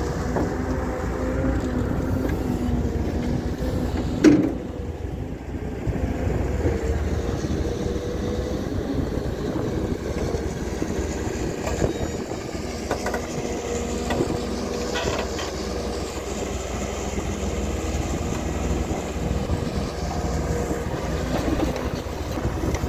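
Vehicle engine running steadily, a low mechanical drone with a hum, with one sharp loud knock about four seconds in.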